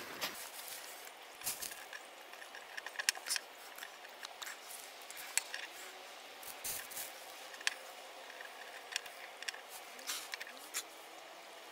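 Faint scattered clicks and small taps of hand-soldering work: wires, a small switch and a soldering iron being handled and touched together.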